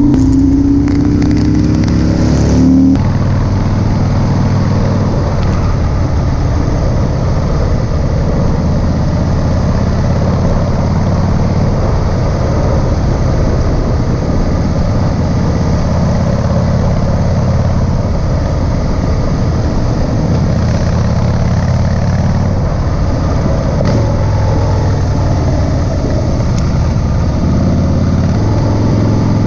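Harley-Davidson CVO Road Glide ST's V-twin engine, heard from the moving bike, pulling up in pitch under acceleration. About three seconds in it drops as the rider shifts up a gear, then it settles into a steady cruise under heavy road and wind noise.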